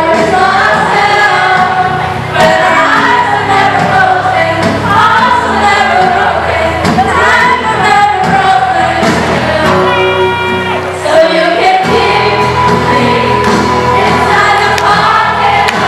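Music with a group of voices singing over a steady backing; the low end drops out briefly about eleven seconds in.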